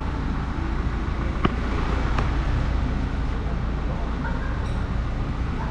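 Steady low rumble and hiss of background noise, with two faint clicks about a second and a half and two seconds in.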